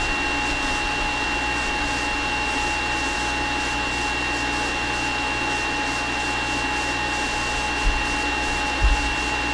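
Stainless steel centrifugal juicer's electric motor running steadily, a constant whirring hum with a high whine, with two soft bumps near the end.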